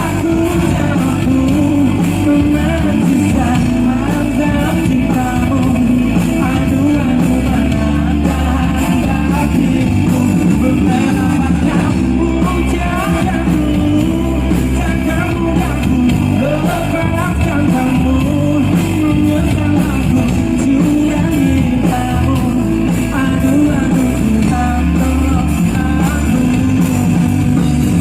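Live rock band playing, with electric guitar and drum kit, and a voice singing over the band.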